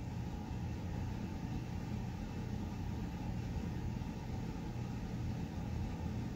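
Steady low hum with a faint hiss: background noise of the room or the recording, unchanging throughout.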